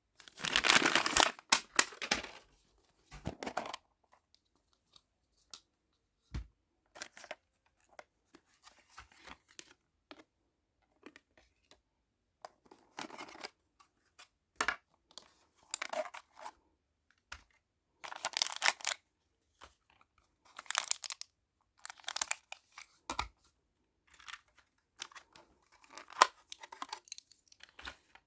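Packaging being handled and torn open by hand: short, irregular bursts of crinkling and tearing with brief pauses between them, and a few sharp clicks.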